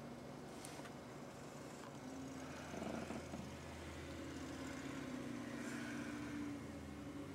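A motor vehicle's engine running faintly, a low steady drone that comes in about two seconds in.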